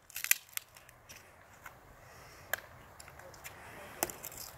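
Irregular sharp clicks and cracks: a quick cluster at the start, then single sharp cracks every second or so over a faint background hiss.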